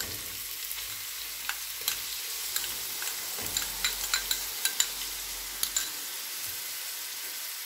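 Ginger-garlic paste sizzling as it hits hot cooking oil with whole spices in a pot: a steady hiss, with scattered sharp pops and clicks through the middle.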